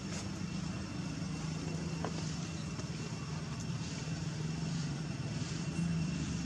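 A steady low engine-like hum, with faint high steady tones above it.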